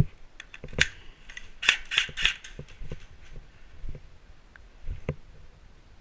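Scattered sharp clicks and clacks: one about a second in, three in quick succession around two seconds in, and another near the end.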